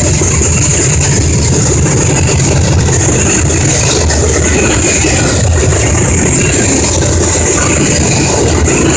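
Freight train passing close by: a loud, steady rumble with a hiss on top. No horn sounds.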